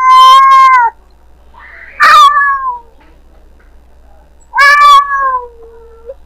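Domestic cat meowing: loud, drawn-out meows about two seconds apart, the later ones sliding down in pitch at the end.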